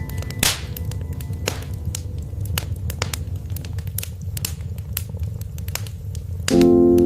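Wood fire burning in a fireplace: frequent sharp crackles and pops over a steady low rumble of flame. Soft keyboard music runs underneath, and a louder chord comes in near the end.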